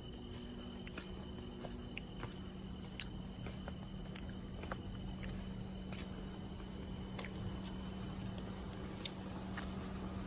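Insects chirping steadily in high, shrill tones, over a steady low hum, with a few faint clicks.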